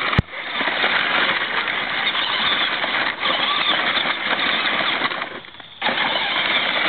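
Battery-powered ride-on toy tractor rolling over gravel: plastic wheels crunching steadily over the stones, with the electric motor running. A sharp click just after the start, and the noise drops out briefly about five seconds in before picking up again.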